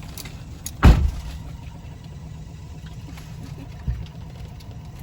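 Car engine idling, a steady low rumble, with a loud thump about a second in and a softer one later.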